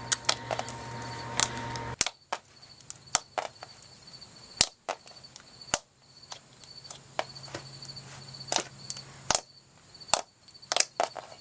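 Slime made with too much baby oil being squeezed and poked by hand, giving off irregular sharp clicks and pops.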